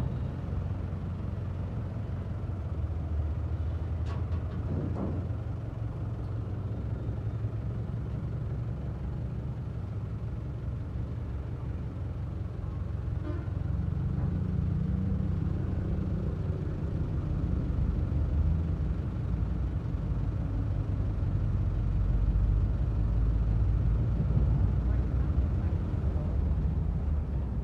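Diesel engine running steadily, a little louder in the second half.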